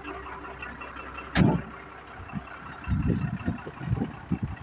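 A heavy truck cab door slamming shut once, about a second and a half in, followed by irregular low buffeting thumps of wind and handling on the microphone.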